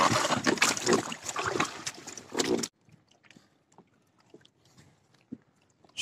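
Choppy lake water splashing and sloshing close by, with scattered clicks. It cuts off abruptly about two and a half seconds in, leaving only a few faint ticks.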